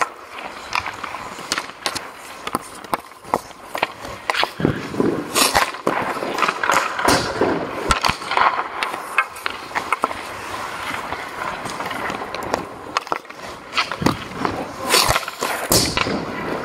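Hockey skates scraping and carving across rink ice, with repeated sharp clacks of a hockey stick striking pucks and pucks hitting pads or boards.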